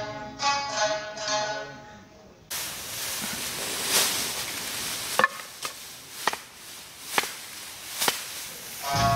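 Plucked-string music that cuts off abruptly about two and a half seconds in, giving way to a steady hiss broken by sharp knocks roughly once a second; the music comes back in near the end.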